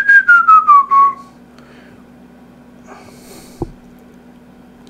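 Person whistling: a quick run of short notes that glide downward in pitch over about a second. Then a faint hiss and a single click a little past the middle.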